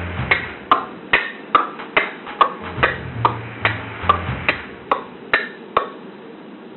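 Short transition music: a melody of short, evenly spaced notes, about two and a half a second, over a low bass line, stopping about six seconds in.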